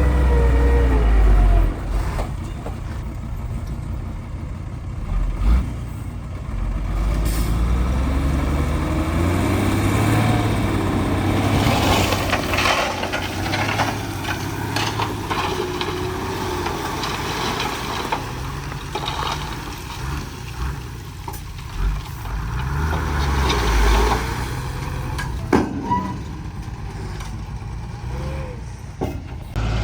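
Heavy diesel earthmoving machinery running and working, its engine pitch drifting up and down, with a few sharp clanks along the way.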